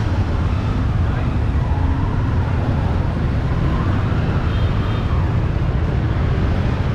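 Steady low rumble of street traffic with people talking in the background.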